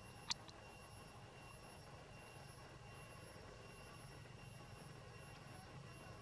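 Near silence: a faint steady hum with thin, steady high tones, and one short, sharp high-pitched chirp about a third of a second in.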